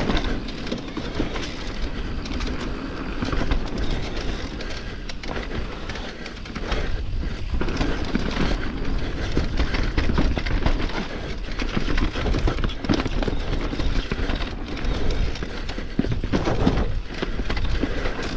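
Electric mountain bike ridden along a dirt forest trail: a steady low rumble of wind on the microphone, with tyres rolling over the ground and the bike clattering and rattling over bumps.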